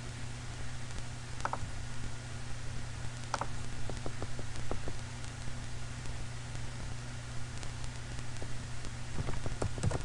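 Steady low computer hum with a few separate mouse-like clicks, then a quick run of keyboard keystrokes near the end as a web address is typed.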